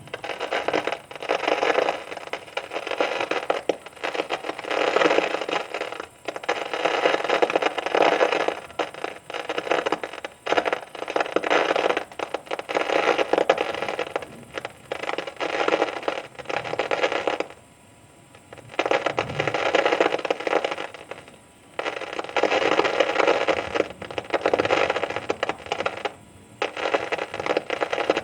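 Heavy thunderstorm rain hammering down with a dense crackle, coming in loud surges broken by a few brief, sudden lulls.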